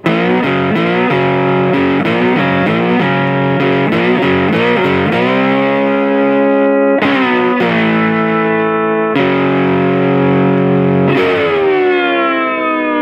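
Distorted electric guitar music: a run of quick chord changes, then several long chords left to ring, the last one fading out near the end.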